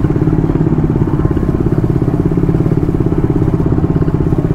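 Motorcycle engine running steadily at low revs in slow traffic, with a rapid, even putter.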